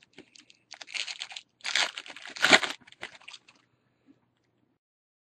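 Foil trading-card pack wrapper crinkling and tearing as it is opened, in two bursts about a second and two seconds in, followed by a few faint crackles.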